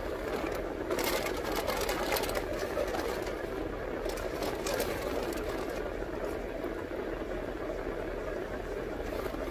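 Steady mechanical whir inside a car cabin, with a few short clicks between one and two and a half seconds in.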